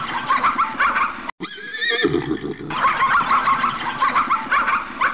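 Zebras calling: many overlapping high, yelping barks and whinnies. About a second in, they give way briefly to a single wavering call.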